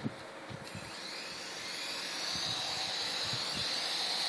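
Syma S107 toy helicopter's small electric motors and coaxial rotors whining, starting about a second in and growing steadily louder.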